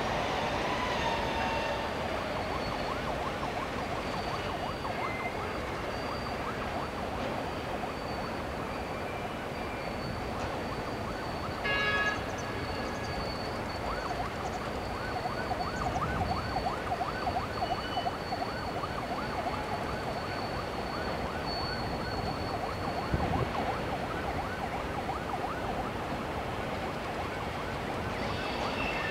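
Freight train running across a steel truss bridge: a steady rumble with a high whine and rapid, repeated squeaks. A brief horn-like note sounds about twelve seconds in.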